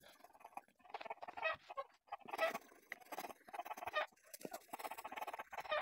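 Coloured pencil scratching on paper in quick, irregular shading strokes, with several short pitched calls over it.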